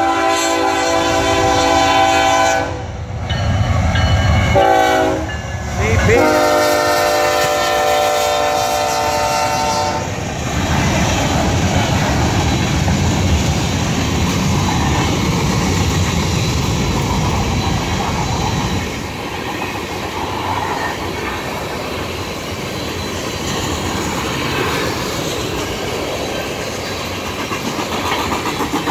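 Diesel locomotive horn sounding several blasts as a freight train approaches: a short blast about five seconds in, then a long one that ends about ten seconds in. After that come the locomotives and a long string of tank cars rolling past, a steady rumble with clickety-clack of wheels over rail joints.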